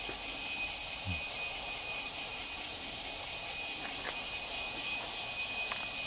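Steady chorus of insects: a dense, high-pitched shrill with a thin, unchanging whine running through it.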